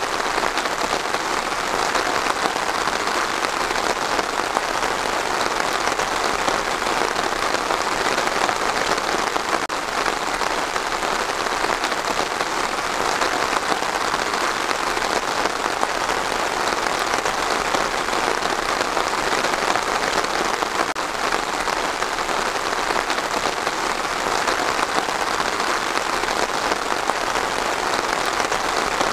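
Steady rain falling, an even hiss of many drops that holds the same level throughout.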